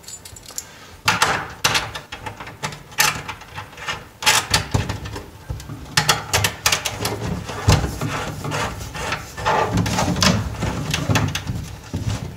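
Handling noise of yellow Romex cable being pushed through a connector into the bottom of a steel breaker panel box: irregular rubbing, rustling and clicks of cable and fitting against the metal box, starting about a second in.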